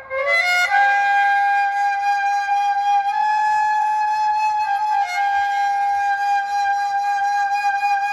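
Loud flute-like instrumental music played through a DJ sound system: a quick rising run into one long held note, with a brief wobble in pitch about five seconds in.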